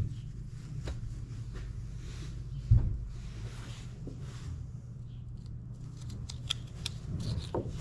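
Small handling noises at a workbench: faint rustling and a few light clicks as fingers work grease onto a small petcock part. One dull thump a little under three seconds in, as the tube of grease is set down on the towel-covered bench. A steady low hum runs underneath.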